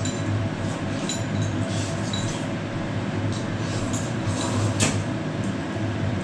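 Tableware at a family meal: chopsticks and spoons give scattered light clinks against bowls. Under them runs a steady low machine hum.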